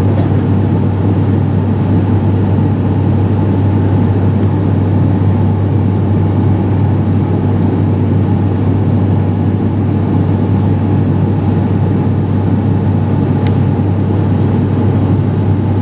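Steady propeller drone inside the cabin of an ATR 72-500 turboprop airliner in flight, a deep even hum with a fainter whine above it.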